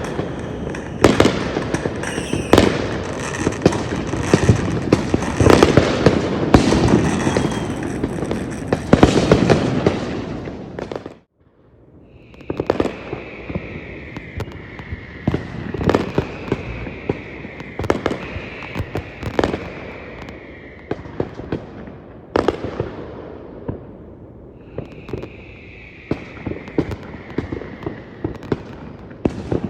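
New Year's fireworks going off: a dense barrage of bangs and crackles, cut short about a third of the way in, then resuming as sparser, quieter bangs with several falling whistles.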